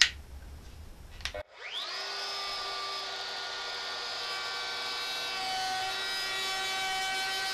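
A sharp click at the start, then about a second and a half in a DeWalt compact wood router with an edge-profiling bit switches on and spins up with a quickly rising whine. It then runs at steady full speed with a high whine.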